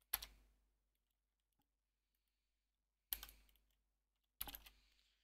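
Computer keyboard typing in three short bursts of quick keystrokes, the first at the start and the other two after a gap of nearly three seconds.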